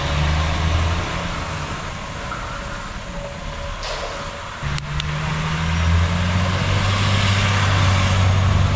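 A large truck's engine running and pulling away, getting louder from about five seconds in as it picks up.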